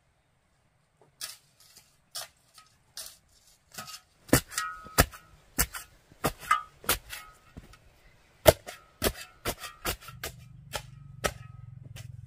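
Steel shovel blade striking hard ground over and over, about two strikes a second, several ringing with a short metallic clang. A low steady hum comes in near the end.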